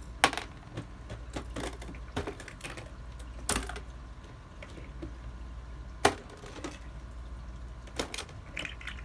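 Fidget toys being handled and put away: irregular clicks and knocks of small objects set down and knocking together, a few of them louder.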